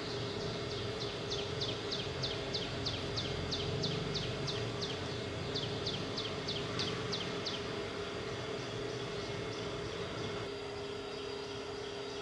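A bird calling outside in a rapid series of high, falling chirps, about three or four a second, which stop about two-thirds of the way through after a brief pause midway; a steady low hum runs underneath.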